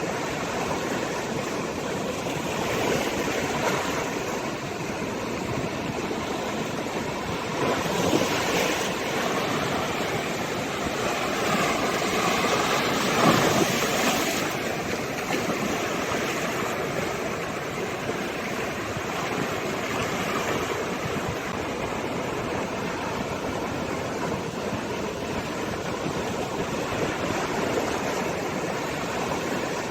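Sea waves washing ashore in a continuous rushing wash that swells and eases slowly, with a bigger surge about eight seconds in and the loudest wave breaking around thirteen seconds in.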